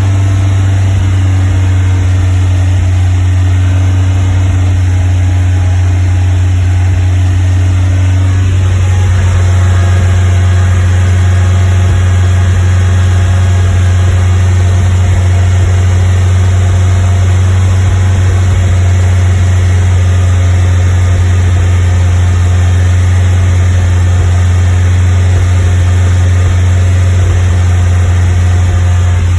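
Westfield sports car engine held steady at about 2500 rpm, running with a misfire at that speed.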